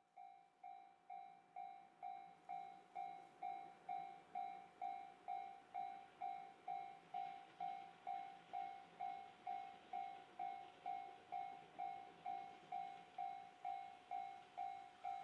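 Japanese railway level-crossing warning bell ringing steadily at about two dings a second, fading in over the first few seconds. An approaching steam train is faintly audible beneath it, growing in the second half.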